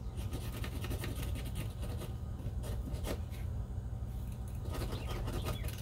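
Fingers pinching and rubbing glue into the ends of a crossbow string on cardboard: light rubbing and scraping with many small ticks, over a steady low hum.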